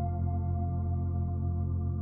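Ambient background music: long held chords over a steady deep drone, with one higher note slowly fading away.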